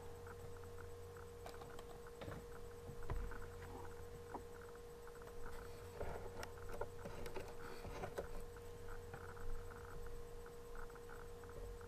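Faint rustling and small clicks of blind-bag packaging and small plastic pieces being handled, over a steady hum.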